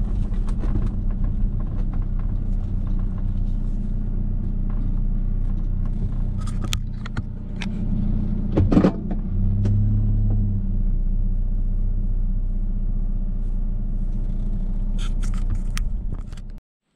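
Vehicle engine idling steadily, heard from inside the cab, as a low even hum. A sharp knock comes just under nine seconds in, and the sound cuts off suddenly near the end.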